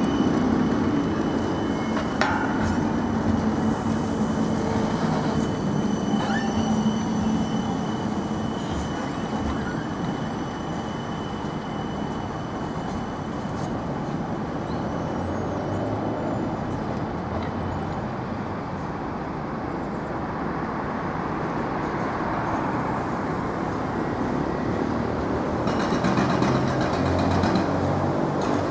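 Midland Metro tram (CAF Urbos 3) running away along street track, with a steady high whine at first that fades as it draws off. Road traffic sounds throughout and grows louder near the end.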